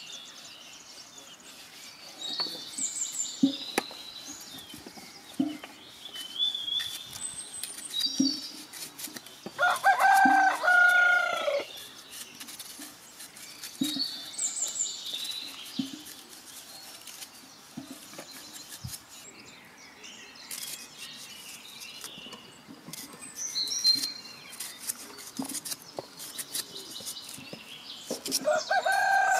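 A rooster crows twice, a loud call of about two seconds about ten seconds in and again near the end, with small birds chirping throughout and a few soft taps.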